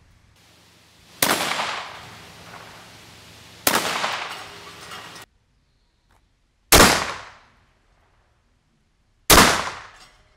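TOZ 66 12-gauge double-barrelled hammer shotgun firing four shots, roughly two and a half to three seconds apart, each followed by a fading echo.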